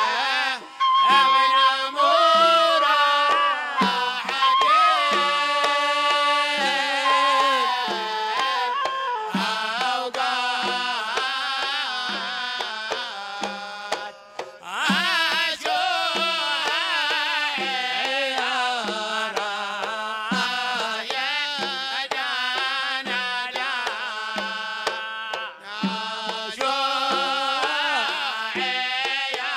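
Hadrami wedding song: a man's voice sings long, ornamented held notes over a steady beat of hand drums and a large double-headed drum.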